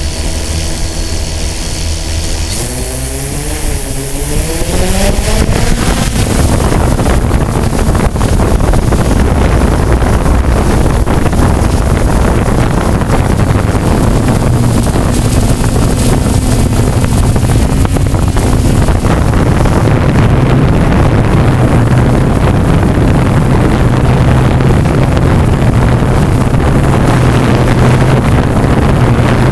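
DJI F550 hexacopter's motors and propellers spinning up with a rising whine a few seconds in, then a loud steady buzz as it lifts off and flies. Heard up close from the camera mounted on its frame.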